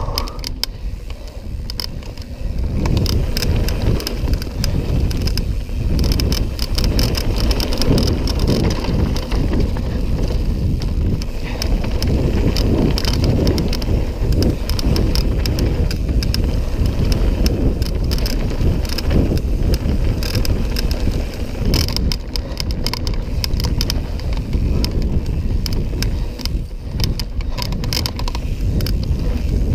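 Mountain bike riding fast down a dirt and gravel trail: the tyres rumble over the ground, with rapid rattles and clicks from the bike and a low rumble of wind on the microphone. It gets louder about two seconds in and stays loud.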